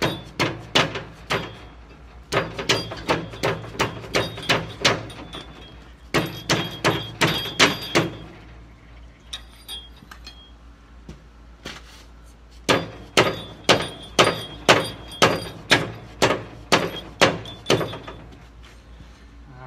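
Hammer blows on the gland of a skid steer's hydraulic lift cylinder, tapping it back into the barrel. Quick runs of sharp, ringing strikes, about three a second, with a pause of several seconds midway.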